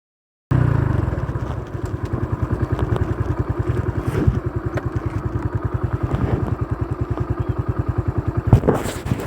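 Motorcycle engine running at low revs with an even, rapid thumping pulse of about seven beats a second. It starts abruptly about half a second in.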